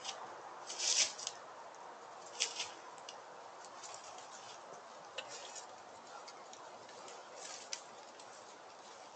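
Steady outdoor hiss with a few short rustling crackles, the loudest about a second in and others scattered through, as from something moving in dry leaves at the scrape.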